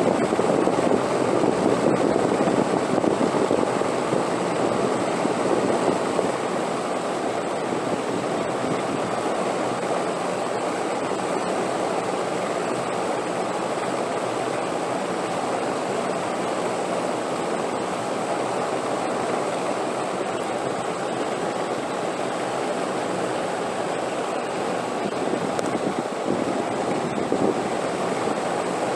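Wind blowing in a steady, even rush, a little stronger for the first six seconds or so and then levelling out.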